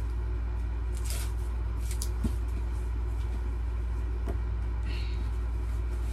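Steady low hum of a room air conditioner, with a few faint taps and scrapes as hands handle a cardboard laptop box.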